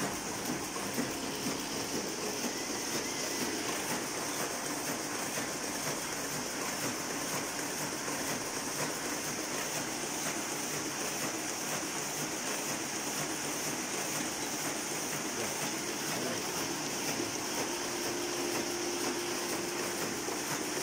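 1983 Heidelberg SORKZ offset printing press running: a steady, even mechanical hiss and whir with no distinct beat. A faint steady hum joins near the end.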